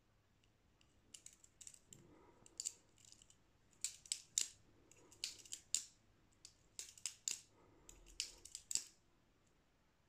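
Small G10-handled Böker Plus balisong (butterfly knife) being flipped open and closed. Its handles clack against the blade's tang in quick runs of sharp clicks from about a second in until near the end.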